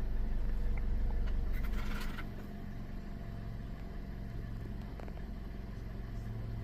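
Car engine idling steadily with the automatic transmission held in drive on the brake, so the freshly refilled transmission fluid circulates. A short scraping clatter comes about two seconds in, and the hum drops a little quieter after it.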